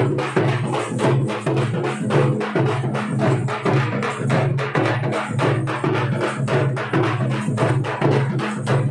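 Drums beaten hard in a fast, even dance rhythm, with a steady low hum underneath.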